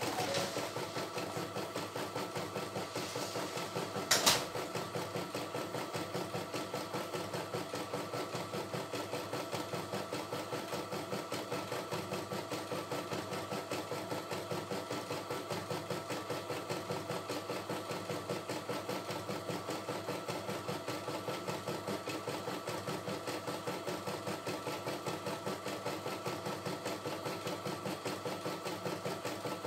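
CNY E960 computerized embroidery machine stitching a design, the needle working in a fast, even rhythm over a steady motor hum. One sharp click about four seconds in.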